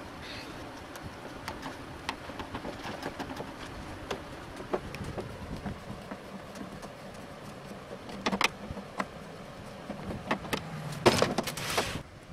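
Screwdriver prying at the plastic back cover of a CRT television: scattered clicks and creaks of the plastic seam and catches, a louder cluster of clicks about eight seconds in, and a louder scraping clatter near the end as the cover shifts, over steady background noise.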